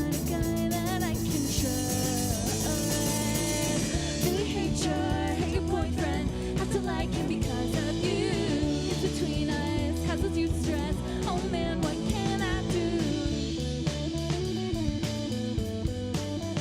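A live punk band playing: electric guitar, bass and drum kit in a steady, continuous groove.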